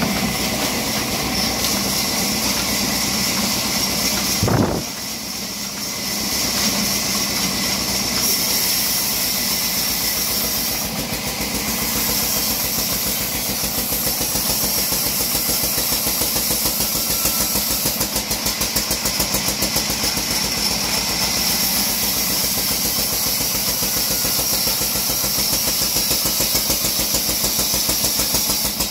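A 48-inch vertical bandsaw at a sawmill running steadily, its machinery making a dense mechanical noise with a fast, even pulse. A single knock about four and a half seconds in, after which the sound briefly drops.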